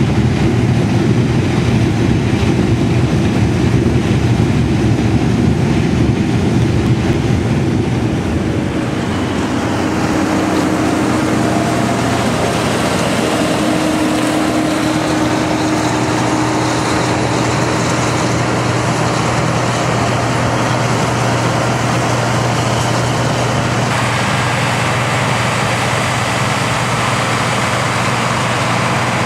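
Heavy diesel harvest machinery running steadily. Its sound changes about nine seconds in to a steadier low hum, and shifts again later on.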